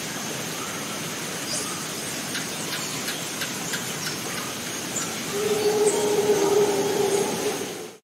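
Rainforest ambience: a steady high insect buzz and scattered short bird chirps over a constant hiss. About five seconds in a louder, low steady call is held for roughly two seconds, and then the sound fades out.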